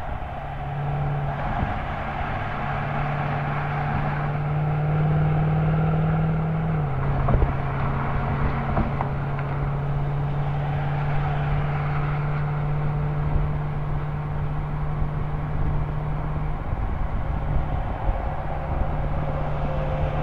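Mercedes-Benz CLS55 AMG's supercharged 5.4-litre V8 exhaust, recorded at the rear tips while driving on the highway: the note climbs gently under throttle, drops with an upshift about seven seconds in, then holds steady at cruising revs, over road and wind noise.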